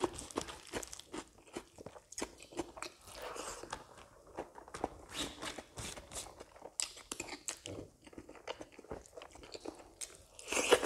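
Close-miked eating sounds of a person eating rice by hand: steady chewing, lip smacks and small crunches, with fingers pressing rice against a banana leaf. A louder burst comes near the end as a handful goes into the mouth.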